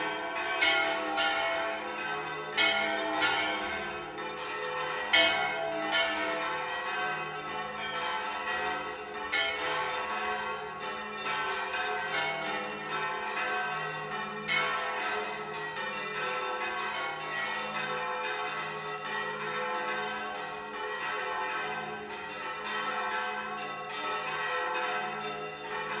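Church tower bells ringing a continuous peal, many strokes overlapping. Several loud, sharp strikes come in the first six seconds, then the ringing settles into a dense, steady wash of strokes.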